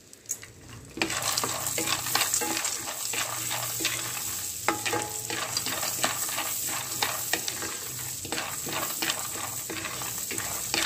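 Peanuts frying in butter and oil in a nonstick kadhai, sizzling steadily once they are stirred, about a second in, with a wooden spoon scraping and pushing them around the pan. Many small clicks and crackles run through the sizzle as the peanuts knock about and start to crackle, the sign that they are roasting.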